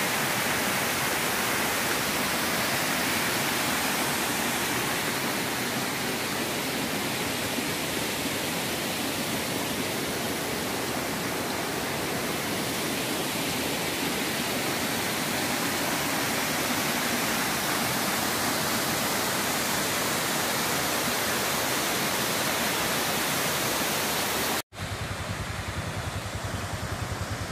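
Waterfall rushing: a steady, even wash of falling water. Near the end it cuts off abruptly, and a quieter sound with a low hum takes over.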